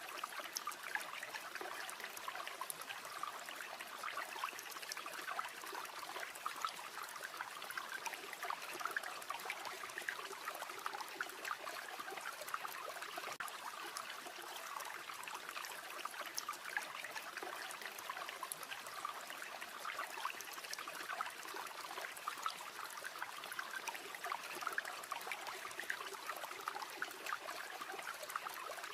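A river flowing in a steady trickling rush, mixed with a campfire's frequent small crackles and pops.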